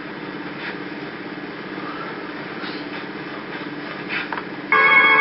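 A steady low hum, then music starts abruptly near the end.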